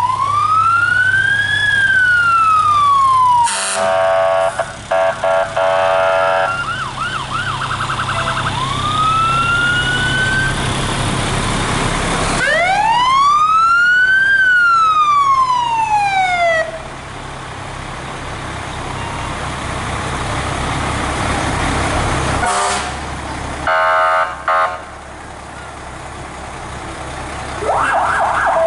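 Fire truck sirens sounding in passing: a siren rises and falls once near the start and again from about twelve seconds in, with a few short upward glides between them, and starts to rise again at the very end. Groups of short horn blasts come about four seconds in and again near the end. A steady low truck-engine drone runs underneath.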